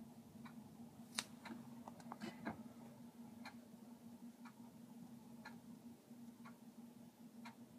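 Near silence on a silent phone line: faint, even ticks about once a second over a low steady hum, with a few slightly louder clicks in the first few seconds.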